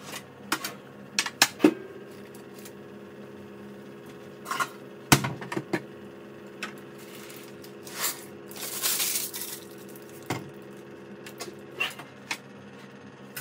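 Kitchen clatter from blind baking: a wall oven opened and a metal baking tray knocking onto the counter, the loudest knock about five seconds in. Around eight to nine seconds comes a rattling rustle as the ceramic baking beans are lifted out of the tart shell in their paper. A steady hum runs underneath.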